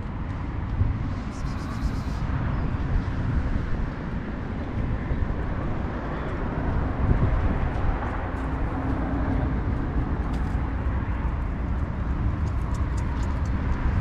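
Steady low outdoor rumble with no clear single source, with a few faint ticks.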